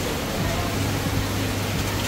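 Heavy tropical rain pouring down, a steady dense hiss, with a low steady hum underneath.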